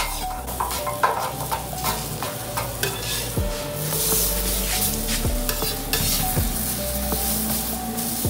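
Flatbreads sizzling as they fry in oil on a metal hotplate over a wood-fired rocket stove. A metal spatula scrapes and taps the plate again and again as they are turned.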